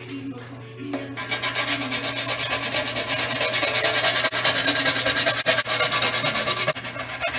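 Nutmeg being grated on a metal box grater: fast, rhythmic rasping strokes that start about a second in.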